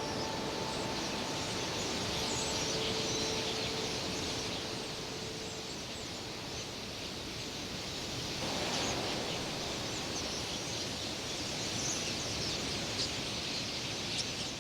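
A huge flock of red-billed quelea: a steady rushing noise of massed wings, with many high chirps over it. A held music note fades out in the first few seconds.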